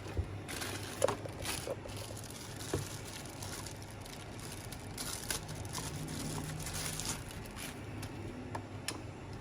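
Handling noise while hoses are pushed onto the fittings of a DZ-280SE vacuum sealer: scattered clicks, knocks and rustling of plastic parts, with a sharper click about a second in.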